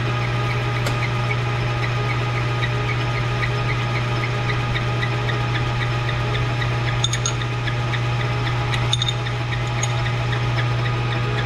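Metal lathe running steadily with a low hum and a light regular tick about three to four times a second, with a few sharp clicks about two thirds of the way through.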